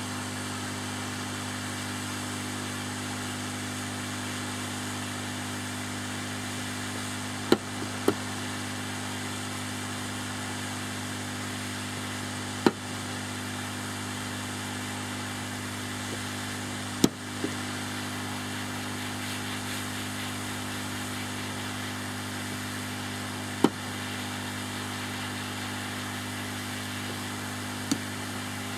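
Hot-air rework gun blowing steadily at 60% flow, a hiss with a steady hum, heating surface-mount resistors until their solder melts. Six sharp clicks come through it at intervals.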